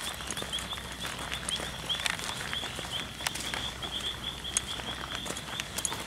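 Crickets chirping in a steady, fast-repeating high trill, with frogs calling and scattered sharp clicks.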